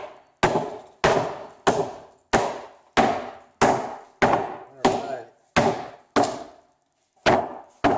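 A chipboard speaker cabinet being smashed apart with repeated heavy blows, about a dozen sharp cracking impacts at a steady pace of roughly one every two-thirds of a second, each ringing out briefly, with a short pause near the end.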